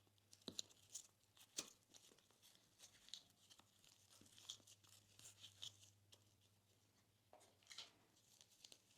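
Slime being worked by hand, giving quiet, irregular sticky crackles and small pops, busiest in the first couple of seconds and again near the end.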